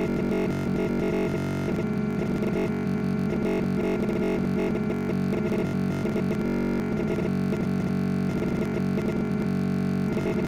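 Background music with guitar and bass, steady in level throughout.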